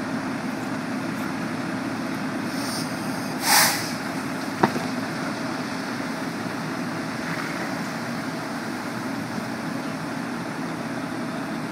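Truck engine running steadily, with a short hiss about three and a half seconds in and a sharp click about a second later.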